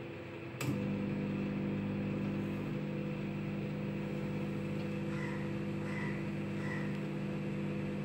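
Haier solo microwave oven running: a steady hum with fan noise. About half a second in there is a click, and the hum grows louder and deeper, typical of the magnetron switching on.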